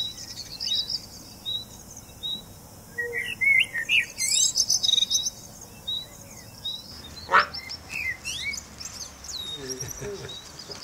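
Small birds chirping and twittering, with many short high chirps repeating, and a single long rising whistle about seven seconds in.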